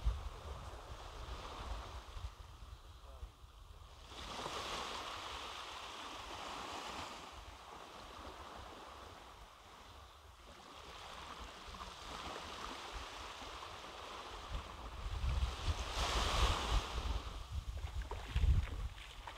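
Gentle surf washing up onto a sandy beach, swelling and fading a few times, with wind rumbling on the microphone now and then, most near the end.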